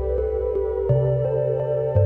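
Slow ambient background music: sustained chords over a low bass note that changes every second or so, with a light tick about three times a second.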